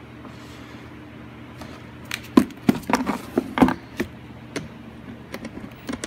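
Sharp clicks and knocks of hard plastic as the air box lid is handled and a battery screwdriver is set onto its bolts, starting about two seconds in and coming irregularly, several in a row.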